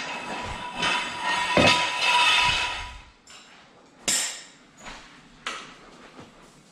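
Steel floor jack being handled on a concrete floor: rattling and scraping for the first three seconds, then three sharp metallic clanks.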